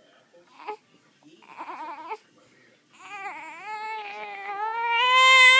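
A baby with the hiccups crying: a short whimpering cry, then a long wail that builds steadily louder and is loudest near the end.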